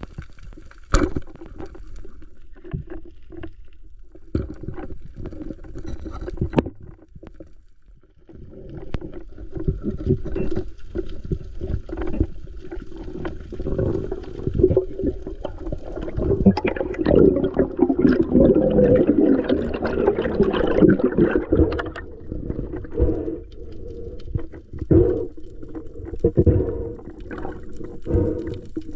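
Water sloshing and gurgling around the camera, with many small knocks and clicks throughout. It is loudest in the middle stretch.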